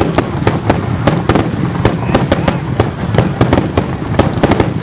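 Fireworks display: a rapid barrage of aerial shells going off, several sharp bangs a second, with no let-up.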